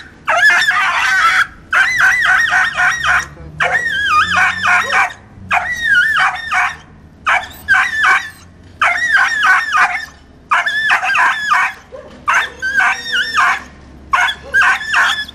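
A stray dog caught in a net, crying and yelping in distress: about ten high-pitched bouts, each a second or so of quick rising-and-falling yelps, with short breaks between.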